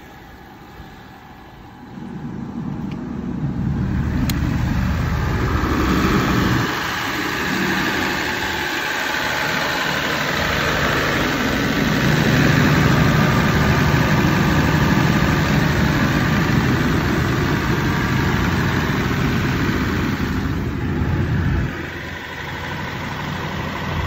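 JCB G220QS 220 kVA silent diesel generator's engine running at a steady speed, the set generating about 400 volts. It gets much louder about two seconds in and then holds a steady drone, heard through the open engine-compartment doors.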